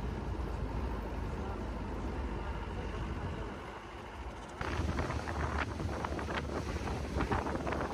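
A vehicle driving on a paved road: steady engine and road noise with wind on the microphone. A little past halfway the sound jumps louder, and wind buffets the microphone in gusts.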